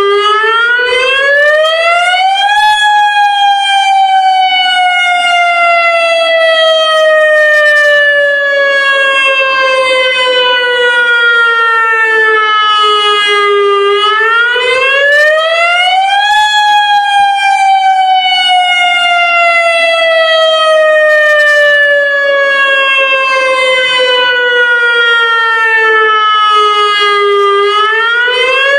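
Federal Signal Modulator lahar warning siren sounding its monthly test with a loud, steady wail. The pitch climbs quickly for about two and a half seconds, then falls slowly for about eleven seconds. The cycle repeats twice, and a third climb begins near the end.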